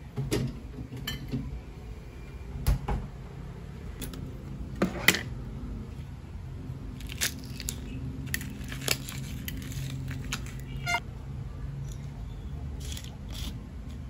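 Ice cubes being pushed loose from a silicone ice tray and dropped into a glass mug: a run of sharp cracks, crunches and knocks scattered irregularly, the loudest about five seconds in, over a low steady hum.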